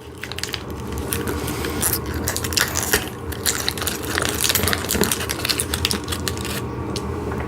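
Hands picking through loose steel assembly hardware (bolts, washers and nuts), with a continuous busy clinking and rattling of small metal parts.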